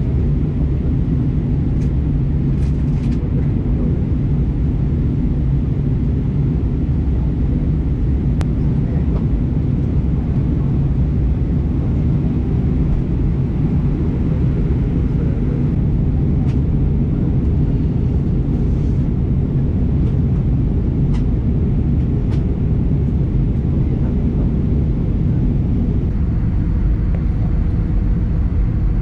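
Steady low vehicle rumble at a constant level, with a few faint clicks.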